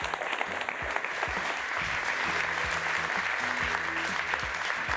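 Audience applauding, with background music and a stepping bass line coming in about a second in.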